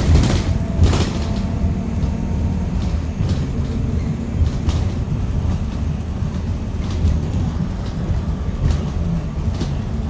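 Cabin of a 2018 Blue Bird Vision school bus under way: steady low engine and road rumble with body rattles, and a couple of sharp knocks in the first second.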